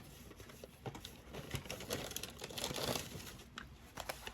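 Takeout food packaging crinkling and rustling as it is handled, with scattered small clicks and taps, busiest in the middle.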